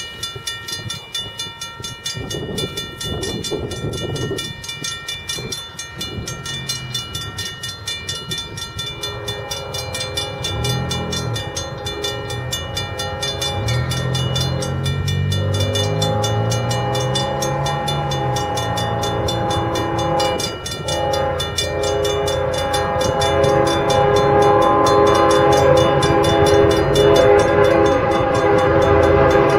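Single BNSF diesel locomotive approaching at speed with a bare-table intermodal train, getting steadily louder. About nine seconds in, its air horn starts sounding and keeps blowing, over the engine's rumble.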